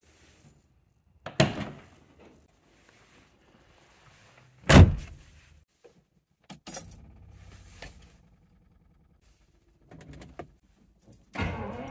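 Two heavy thunks from the car's door, the second, about five seconds in, the loudest, then keys rattling and clicks at the ignition switch. Near the end the 1974 Jaguar E-Type's V12 cranks and catches, settling into a steady run on a choke-assisted cold start after winter storage.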